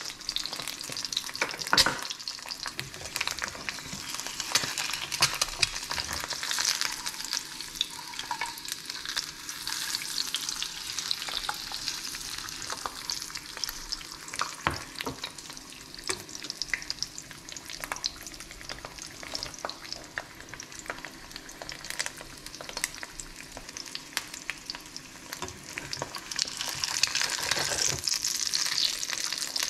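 An egg frying in a pan: a steady sizzle with crackles and pops, and occasional taps and scrapes of a spatula against the pan. The sizzle grows louder near the end.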